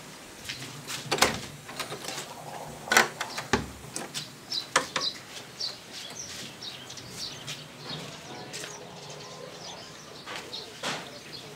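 A door being handled and opened, with a few sharp clicks and knocks, then small birds chirping outside in many short, high notes.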